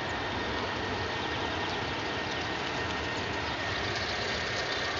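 Steady low mechanical rumble under a steady hiss, without change or distinct events.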